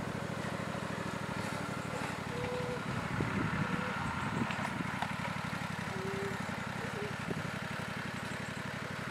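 Small engine of a riding garden machine running steadily under load as it hauls a load of wood chips.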